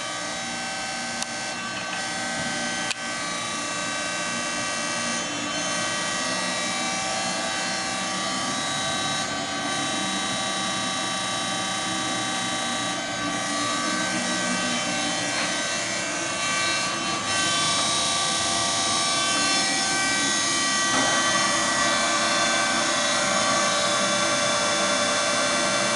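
DoALL 618-7 hydraulic surface grinder running with both its hydraulic pump motor and its grinding-wheel spindle motor on: a steady machine hum and whine with many held tones. It grows a little louder over the span, and a rougher hiss joins about two-thirds of the way in.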